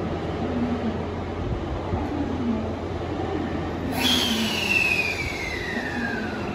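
A JR Central 383 series electric train pulling out from the platform. Under a steady low hum, a high whine starts suddenly about four seconds in and slides steadily down in pitch for over two seconds.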